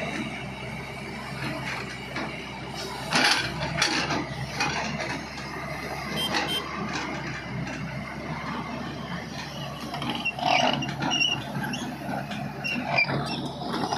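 Tata Hitachi EX210LC excavator's diesel engine running steadily while it works its bucket in the soil, with louder clanks and rattles a few times, about three seconds in and again around ten seconds.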